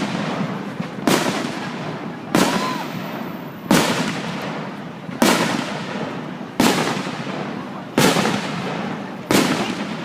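Aerial fireworks shells bursting in a steady series, seven sharp bangs about one every second and a half. Each bang is followed by a long fading rumble that runs into the next.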